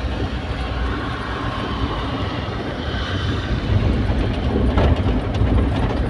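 Mahindra Bolero pickup truck on the move, heard from inside the cab: a steady low engine and road rumble.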